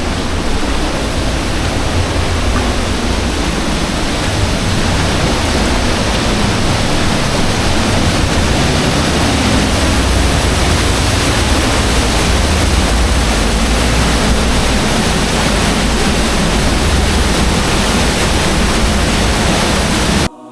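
Waterfall: water falling close to the microphone, a steady loud rush with a deep low rumble, cutting off suddenly near the end.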